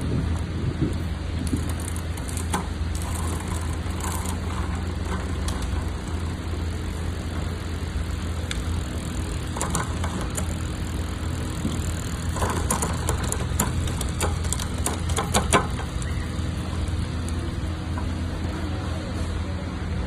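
A steady low hum, with scattered light clicks and rattles from the upturned e-bike's crank, chain and gears being turned and worked by hand: a short spell of clicks in the first few seconds and a longer, busier one past the middle.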